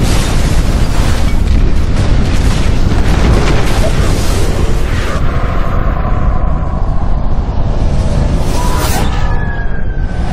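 Film sound effect of an explosion's blast wave: a long, loud, continuous rumbling roar, very heavy in the low end, easing in the highs past the middle, with a sharp crack near the end. Music sits underneath.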